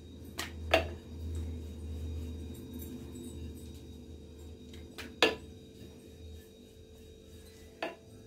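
Wooden rolling pin rolling out dough on a round stone rolling board: a low rolling rumble with four sharp knocks of the pin against the stone, two close together under a second in, one about five seconds in and one near the end.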